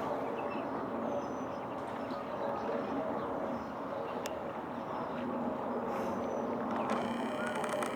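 Steady outdoor din of distant engines and traffic, with faint high chirps and a few clicks over it.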